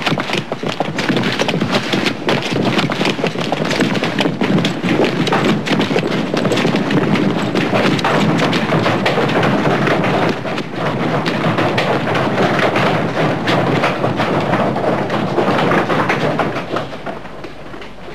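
A dense, loud clatter of many footsteps as a group of men runs across a hard-packed courtyard, tapering off near the end.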